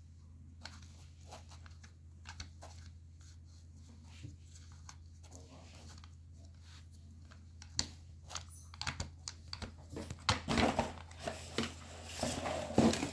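Loose dry tobacco rustling and small plastic clicks as hands pack it into the chamber of a Gizeh Silver Tip Boy cigarette-filling machine. The handling is sparse at first and gets busier and louder in the last few seconds, over a steady low hum.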